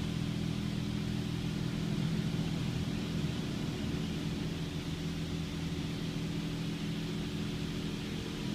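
Automatic car wash machinery running: a steady low mechanical hum with a faint hiss above it, unbroken throughout.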